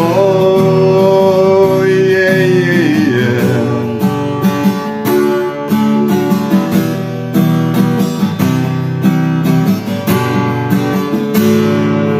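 A singer holds the last note of the chorus with vibrato, letting it fall away about three seconds in, over a strummed acoustic guitar; the guitar then carries on strumming chords alone as an instrumental break.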